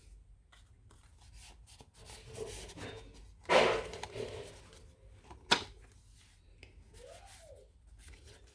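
Paper pages of a handmade junk journal being handled and turned: soft rubbing and rustling of paper, a louder rustle about three and a half seconds in as a page turns, and a sharp tap about two seconds later.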